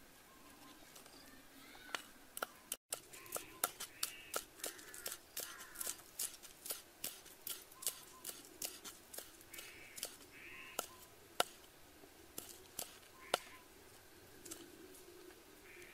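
Cleaver chopping shallots, chilies and green onions on a round wooden chopping board: a run of sharp knocks, about three a second, which stops shortly before the end.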